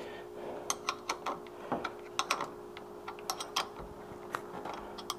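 Irregular metallic clicks and clinks of a small wrench working a nut on a battery terminal post, tightening a charger lead onto a boat battery, over a steady faint hum.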